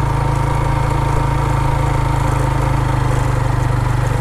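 Motorcycle engine running steadily while riding at an even speed.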